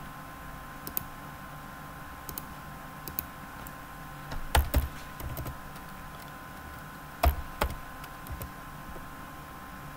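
Scattered computer keyboard keystrokes and clicks, with the loudest around four and a half seconds in and again past seven seconds, over a steady faint hum.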